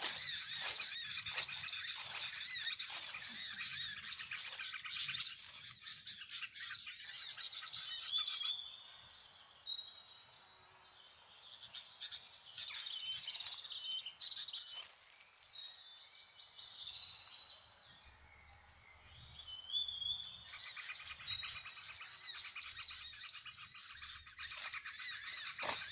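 Small birds chirping in a dense, rapid, continuous chatter that breaks off about seven seconds in. It gives way to scattered single calls with quick rising and falling whistles, and the dense chirping returns for the last few seconds.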